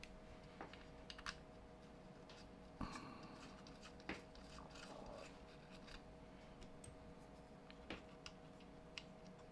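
Faint scattered clicks, taps and light scrapes of small parts being handled as a Raspberry Pi board is set onto nylon standoffs on a robot car's chassis, over a faint steady hum.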